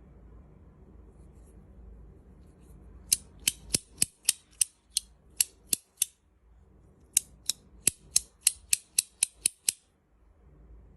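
Titanium alloy fidget toy making crisp metallic clicks: two runs of about ten sharp clicks each, roughly three to four a second, with a pause of about a second between them.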